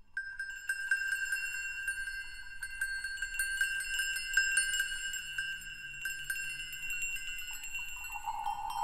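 Chime music starts out of silence: two high ringing tones held steady, with light tinkling strikes scattered over them. A lower ringing tone comes in near the end.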